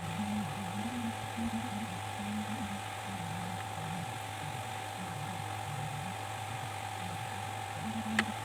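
Soft background music, a slow low melody over a steady hum, with a single click near the end.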